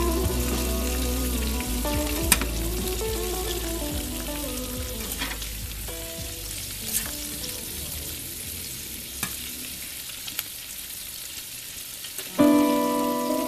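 Asparagus and diced Spam sizzling in a stainless steel skillet as a spatula stirs them, with a few sharp clicks along the way; the sizzle slowly dies down. Music comes in loudly about a second before the end.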